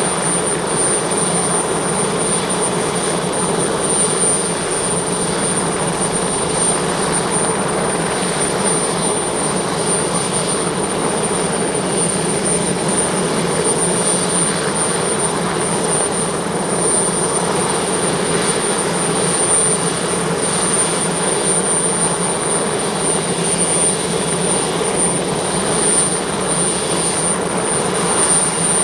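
Sud Aviation Alouette II helicopter's turbine engine running at a steady speed, a constant high-pitched whine over a steady rushing drone.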